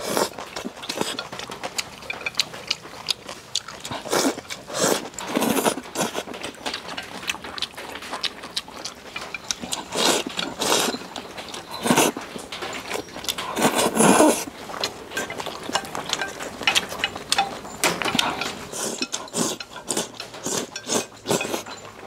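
A person eating stir-fried rice noodles with chopsticks: repeated slurps of noodle strands and chewing, with many small clicks in between. The loudest slurp comes about 14 seconds in.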